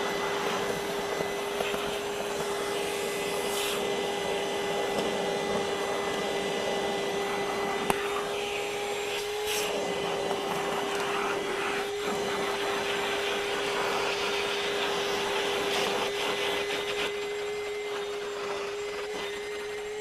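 Ryobi PCL733 18V cordless 1-gallon wet/dry vacuum running steadily, sucking sawdust and wood chips off a carpeted car floor mat through a small nozzle: an even motor whine over rushing air, with a few brief clicks.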